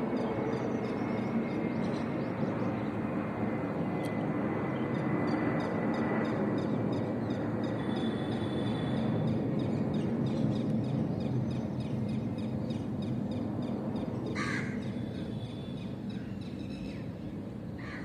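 Steady outdoor background noise with faint bird chirps throughout, and two short, sharp bird calls in the last few seconds.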